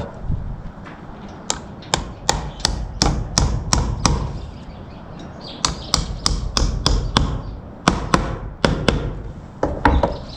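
Hammer tapping in several quick runs of sharp strikes, fastening a new electrical box to a wooden ceiling beam.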